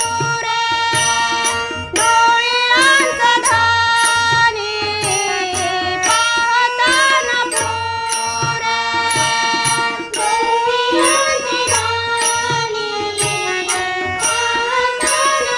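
Marathi devotional abhang music: a melodic line that glides and wavers in pitch over a regular drum beat.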